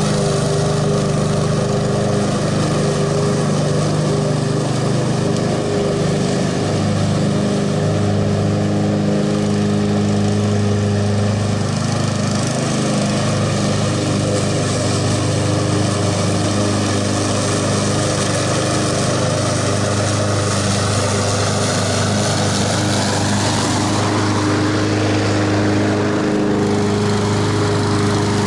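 Honda HRX217VKA walk-behind mower's single-cylinder engine running under load while its blade cuts thick tall grass with the bagger off, set for rear discharge. The engine note shifts a little in pitch as the load changes.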